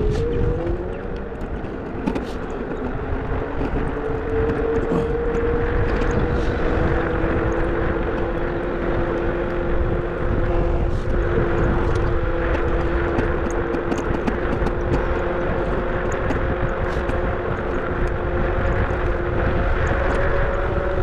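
Car being driven: a steady engine drone with two even hum tones over a constant road rumble.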